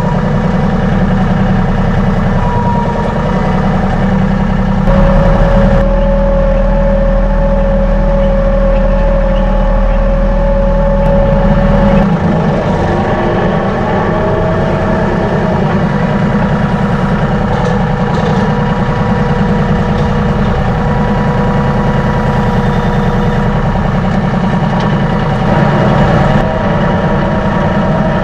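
Pickup truck running down the road: steady engine and road noise with a whining tone that holds, then drops in pitch about twelve seconds in and shifts again near the end.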